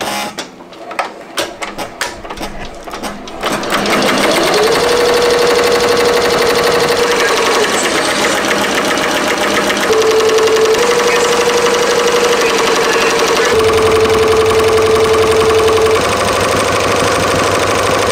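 Ricoma MT-1501 15-needle embroidery machine stitching a logo onto a hooded sweatshirt. A few scattered clicks come first. About four seconds in it comes up to speed with a rising whine, then runs with a steady, rapid needle chatter under a held whine that steps slightly in pitch a few times.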